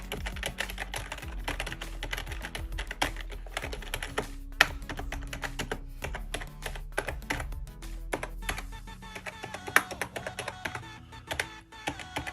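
Typing on a Logitech G213 Prodigy membrane gaming keyboard: a fast, irregular run of key presses clattering throughout.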